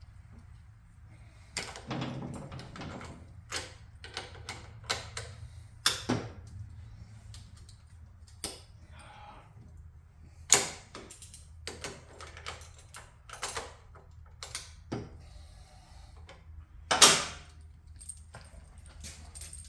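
Metal hand tools clicking, clinking and knocking against each other and against the Ironhead engine during teardown work on a seized head bolt. The clicks come irregularly, with a clattering stretch about two seconds in and two sharper clanks, about ten and seventeen seconds in.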